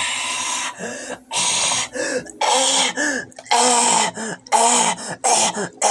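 A man's loud, rough, wordless vocalising in a string of about eight short bursts with brief gaps between them.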